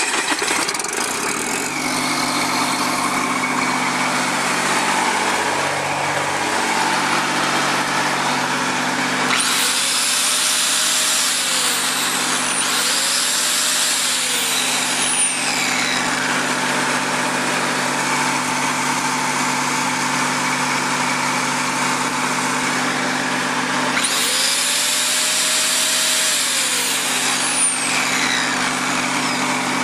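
Lincoln SA-250 welder's diesel engine running steadily. An angle grinder with a cup wire brush, plugged into the welder's generator, is switched on three times: twice in quick succession, then once more later. Each time it whines up to speed and winds down, a test that the generator is producing electricity.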